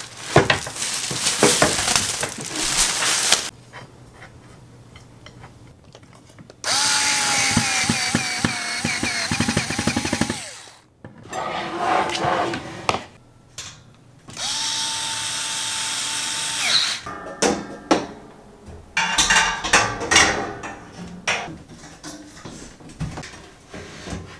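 Power drill-driver running in two steady spells, about four seconds and then about two and a half seconds, driving screws while a laundry rack is assembled. Knocks, clicks and rattles of parts being handled come before, between and after.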